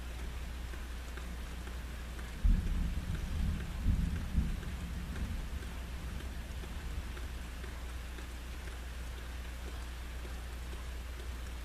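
Steady rain falling, with a sudden thunderclap about two and a half seconds in that rumbles in a few swells for around three seconds before dying away.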